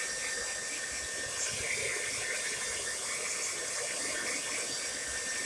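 Tresemme Salon Smooth Professional hair dryer running steadily on its hot setting, a constant rush of blown air.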